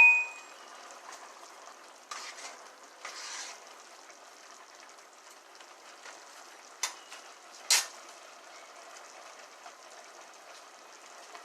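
Food sizzling softly in a pan, with a few stirring scrapes and two sharp clicks about seven and eight seconds in.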